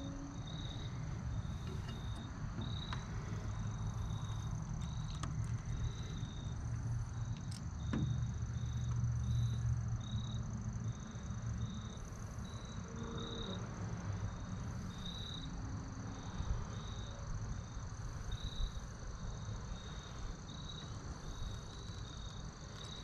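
Outdoor ambience of insects chirping: short, evenly repeated chirps about once or twice a second over a steady high-pitched trill, with recurring very high buzzes. Underneath runs a low, steady rumble.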